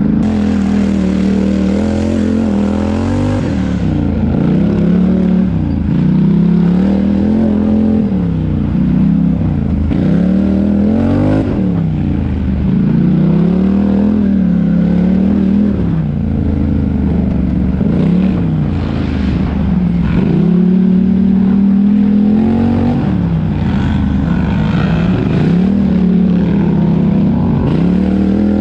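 Four-wheel-drive racing ATV engine, recorded close on board, revving up and dropping back over and over, roughly every two seconds, as the throttle is worked on and off.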